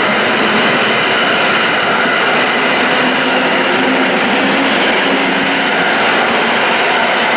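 Koleje Mazowieckie EN57AKM electric multiple unit moving along the platform: a steady loud rumble of wheels and running gear, with a faint whine that rises slightly in pitch in the middle.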